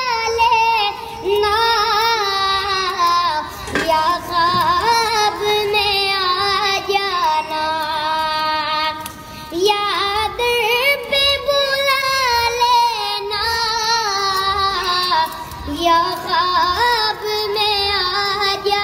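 Background song: a high voice sings a wavering melody over music.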